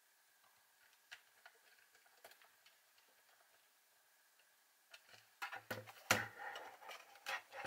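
Precision screwdriver turning small screws into the plastic body of an Instax Wide 300 camera, giving faint scattered ticks. About five seconds in, louder clicks and rattles follow as the plastic camera body is handled and turned over.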